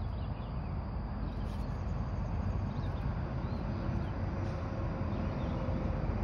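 Outdoor background noise: a steady low rumble, with a few faint, short high chirps of small birds scattered through it.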